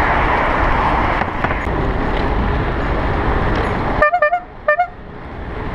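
A horn sounding in short staccato toots: a quick run of about four beeps, two more a moment later, and one last beep at the end. Before the toots there is steady traffic and wind noise.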